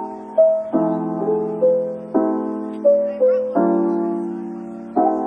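Soft background piano music: a slow melody over chords struck about every second and a half, each dying away before the next.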